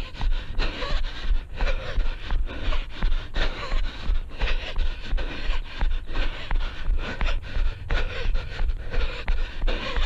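A runner panting hard in a steady rhythm with his stride, with a regular thud of footfalls about two to three times a second.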